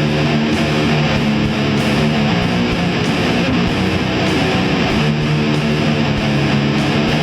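Heavy, distorted electric guitars strumming chords over drums in an instrumental passage of a nu-metal song.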